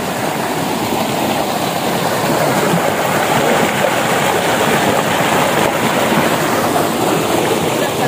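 Fast, clear stream water rushing and churning over a small step in a concrete-lined channel, a steady rushing noise.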